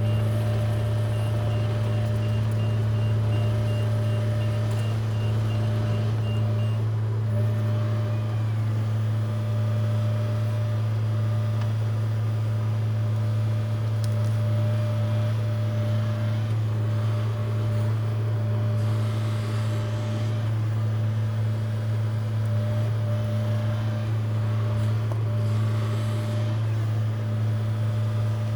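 John Deere 60G excavator's Yanmar diesel engine running steadily under work. A faint, rapid high beeping sounds through the first several seconds, then stops.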